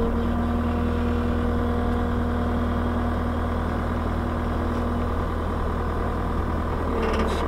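Diesel skid steer engine running steadily under a low rumble, with a steady whine over it for the first five seconds or so as the hydraulics raise the bucket arms.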